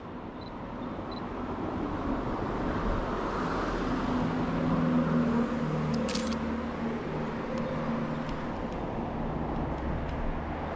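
A car driving past on the street, its engine and tyre noise growing louder to a peak about five seconds in, then easing off. A short sharp click sounds about six seconds in.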